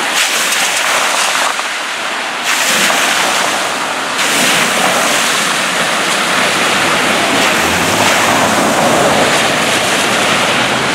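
Water from a broken water main gushing and bubbling up through the road surface, a steady rushing noise, with cars passing on the wet road. It gets louder about two and a half seconds in and again about four seconds in.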